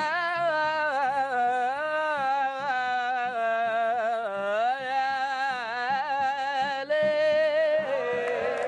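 Middle Eastern-style music: one melodic line in long, gliding, ornamented notes without words over a steady beat.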